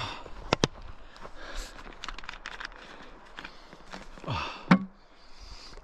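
Crinkling and clicking of a plastic water bottle being handled, with a short breath and then one sharp click about three-quarters of the way through.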